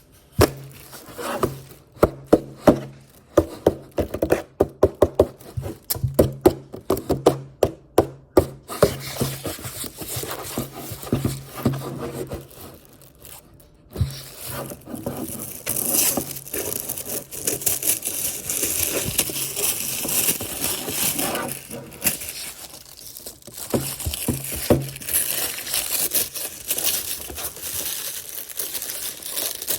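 Blind-box packaging being handled and opened: a quick run of sharp taps and clicks for the first nine seconds or so, then steady crinkling and tearing of the box and its wrapping.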